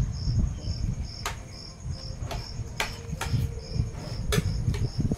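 A cricket chirping steadily, about two chirps a second, with several sharp clinks of a spoon against plates and a low rumble underneath.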